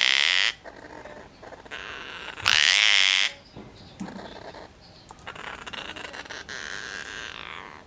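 Juvenile gang-gang cockatoos begging for food: harsh, rasping calls, two loud ones at the start and about two and a half seconds in, then softer, drawn-out calls near the end.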